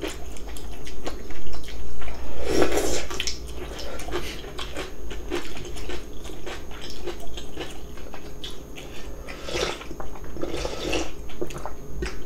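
Close-up mouth sounds of eating cold yeolmu water-kimchi noodles and steamed dumplings: chewing with many small wet smacks and clicks, and louder slurps about two and a half seconds in and again near the end.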